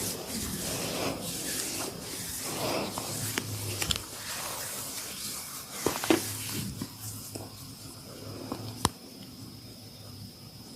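Hands rubbing and kneading skin and hair during a massage, a rustling hiss that thins out after about seven seconds. A few sharp cracks cut through it, the loudest about six seconds in.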